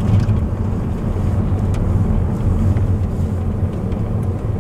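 Car driving along a street, heard from inside the cabin: a steady low rumble of engine and tyres.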